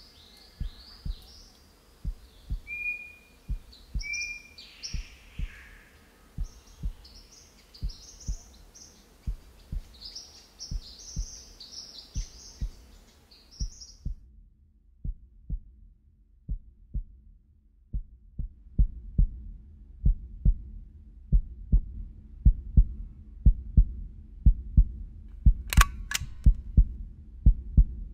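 Heartbeat sound effect: steady, regular low thuds that grow louder about two-thirds of the way through. Birds chirp over it until about halfway, where they cut off suddenly, and a brief sharp high-pitched sound comes near the end.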